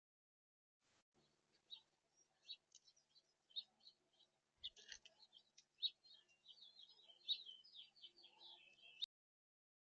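Small songbirds chirping and twittering faintly, many short high calls growing busier and more warbling in the second half, over a faint low hum. The sound starts about a second in and cuts off suddenly near the end.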